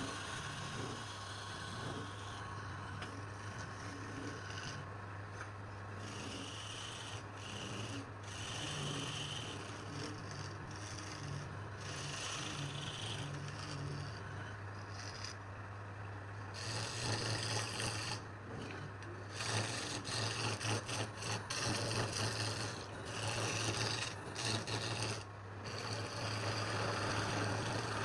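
Wood being shaped by a rasping, abrading tool in uneven strokes over a steady low hum. The scraping grows louder and busier about two-thirds of the way in.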